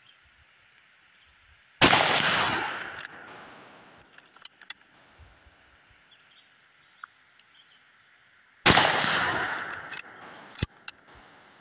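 .223 bolt-action rifle fired twice, about seven seconds apart, each shot echoing away over a second or so. Each shot is followed by a few sharp metallic clicks as the bolt is worked to chamber the next round.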